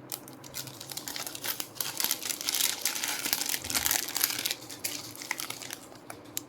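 Packaging crinkling and rustling as the next piece of jewelry is unwrapped, busiest in the middle few seconds.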